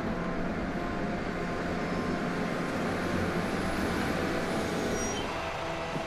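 Coach bus's diesel engine running as the bus drives slowly past close by, a steady engine hum with road noise.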